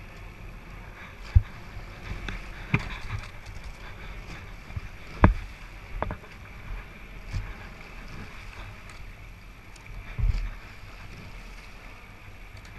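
Eight-oared rowing shell paddling along: steady rush of water against the hull and blades, with a few sharp knocks from the oars and rigging, the loudest about five seconds in.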